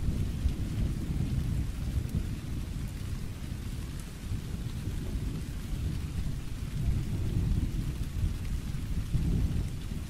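Thunderstorm: steady rain with a continuous low rumble of thunder that eases about four seconds in and builds again near the end.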